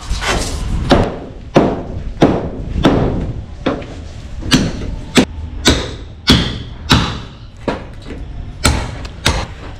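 Hammer blows on the edge of a steel door frame set in a masonry wall: about a dozen sharp strikes at roughly two a second, uneven in pace, some with a brief metallic ring.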